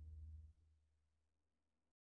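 The end of the background music fading out within the first half second, then silence.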